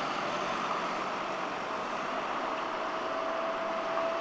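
Road traffic moving through a junction: car and bus engines and tyres in a steady wash. A faint steady whine sounds for a second or so past the middle.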